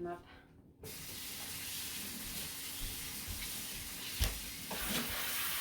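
Water running steadily from a tap, turned on suddenly about a second in, as a mop is rinsed under it; a single knock about four seconds in.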